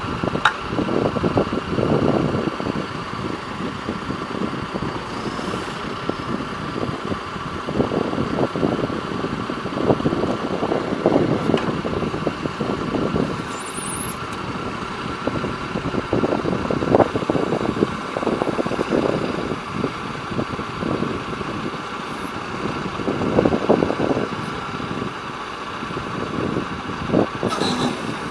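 Diesel engine of a John Deere 310J backhoe loader running, swelling and easing off again and again every few seconds, with a few sharp clicks.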